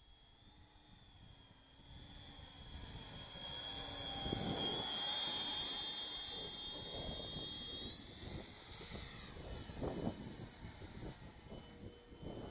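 Whistle-modified 70 mm electric ducted fan of a radio-controlled Eurofighter park jet whining as the model makes a low pass, growing louder to a peak about four to five seconds in. Around eight seconds in the whine rises sharply in pitch as the fan speeds up, and holds high, over gusty low noise.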